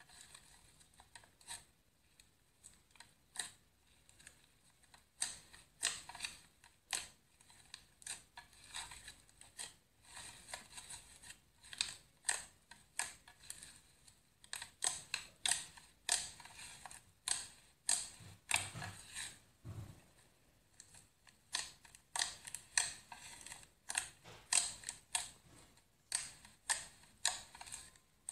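Pink fluffy slime being squished, poked and stretched by hand, giving irregular runs of sticky crackling and clicking pops.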